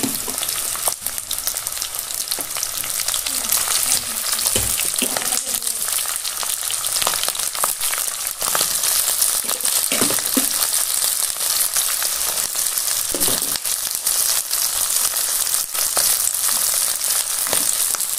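Chopped duck meat sizzling in hot mustard oil in a kadai over a high flame, a steady high hiss. Now and then it is stirred, with short scrapes and knocks against the pan.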